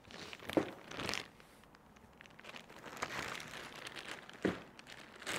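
Paper and dental bibs crinkling as they are handled and laid out, in irregular bursts, with two short knocks of something set down on the table, one about half a second in and one near the end.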